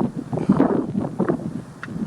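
Strong wind gusting against the microphone: an uneven, low rush that swells and dips from moment to moment.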